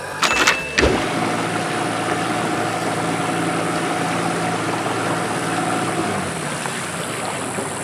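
A long river boat's motor running steadily at cruising speed, starting about a second in.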